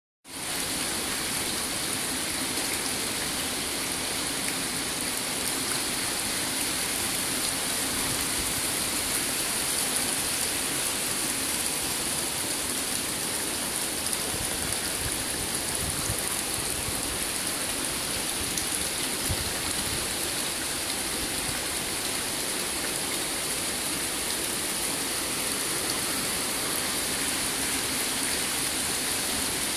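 Water pouring steadily from an inflow pipe into a fish-farm tank: a continuous splashing rush with no breaks.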